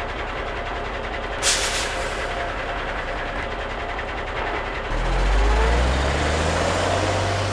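Truck sound effects: an engine running steadily, a short air-brake-like hiss about a second and a half in, then the engine revving up with rising pitch about five seconds in as the tow truck pulls away.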